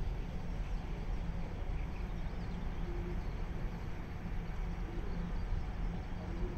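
Steady outdoor background noise, mostly a low rumble, with a few faint high chirps.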